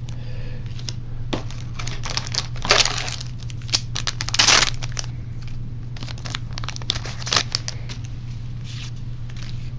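Foil wrapper of a trading card booster pack crinkling and being torn open by hand, in irregular crackly rustles, loudest about three and four and a half seconds in, over a steady low hum.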